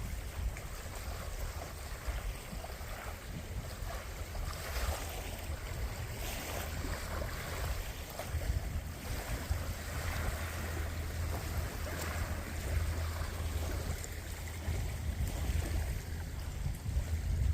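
Wind buffeting the microphone in a low, steady rumble, over a rushing, uneven wash of water on a loch.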